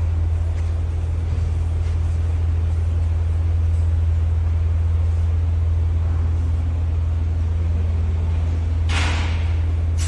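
A vehicle engine running steadily with a low, even hum, with a brief hiss about nine seconds in and another near the end.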